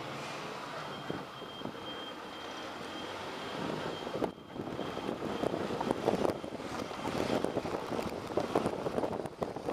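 City bus in motion, heard from inside: steady engine and road noise with a faint, thin high tone for the first few seconds. About halfway through it turns to a louder, rough, crackling rattle.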